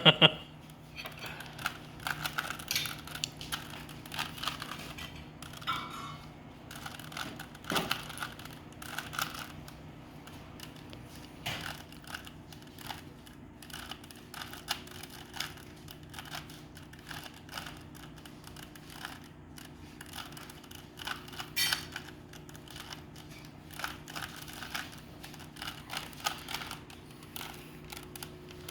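Plastic Rubik's cube being turned by hand during a solve: rapid, irregular clicking and rattling of the layers as they are twisted.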